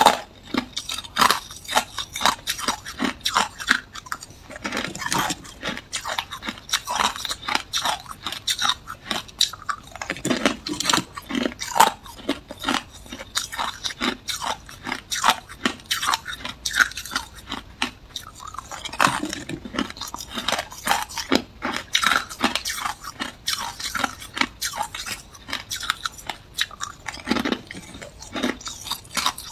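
Hard clear ice being bitten and chewed: small round ice balls crack and crunch between the teeth in a dense, irregular run of sharp snaps.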